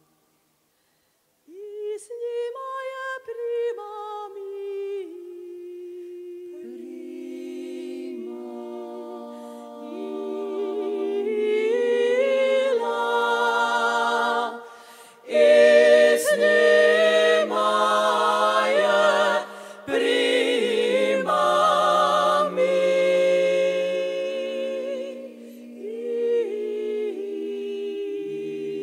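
Women's klapa group singing a cappella in close harmony. After about a second and a half of silence a single voice begins, further voices join a few seconds later, and the full group grows louder about ten seconds in, with two brief breaks between phrases.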